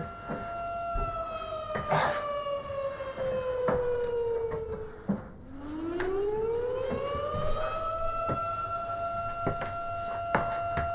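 Alarm siren wailing: one steady tone that slowly falls in pitch, cuts out briefly about five seconds in, then rises back up and holds. Scattered knocks and thumps of people climbing down a wooden hatch ladder sound over it.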